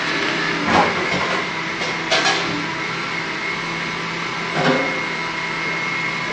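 Steady whooshing hum of kitchen machinery or ventilation with a thin constant whine, broken by a few short knocks and clinks of a spoon and crockery, about a second, two seconds and nearly five seconds in.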